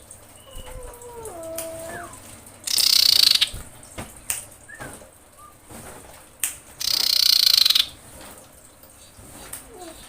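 Common iora (cipoh), given as a female in breeding condition calling to males, uttering two harsh, rasping calls of just under a second each, about four seconds apart. Fainter short gliding whistled notes come before the first call and near the end.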